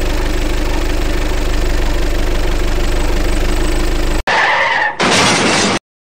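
Truck engine sound effect running steadily under strain, with a deep rumble and an even fast pulse. It cuts off abruptly about four seconds in and is followed by two short hissing noise effects, the second stopping sharply near the end.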